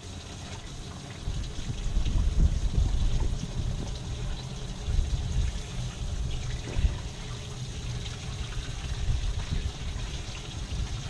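Water trickling and splashing by a boat, over a low, uneven rumble.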